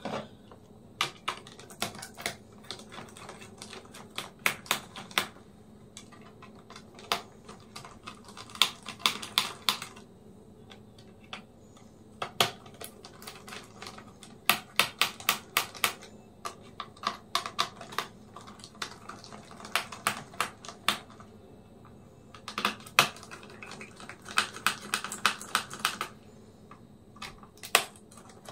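Bursts of small sharp clicks and taps as a screwdriver undoes the screws holding a laptop's heatsink and fan, with small metal and plastic parts knocking as they are handled. The clicks come in quick runs of several a second, broken by short pauses.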